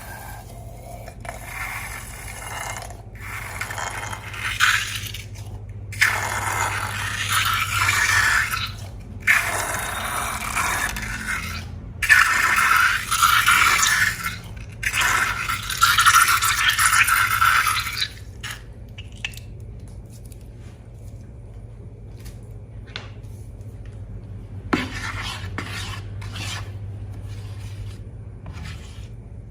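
Sticky, wet slime being worked by hand, scraping and squelching in bursts with short pauses between them. About eighteen seconds in it drops to faint scattered clicks and small squelches over a steady low hum.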